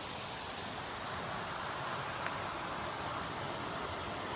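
Steady rush of a mountain creek running over rocks, a constant even hiss, with a faint click about two seconds in.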